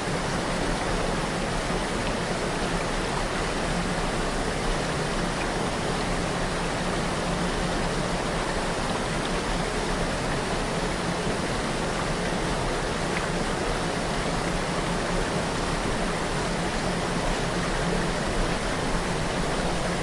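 Waterfall on a river, water pouring and splashing in a steady, even rush.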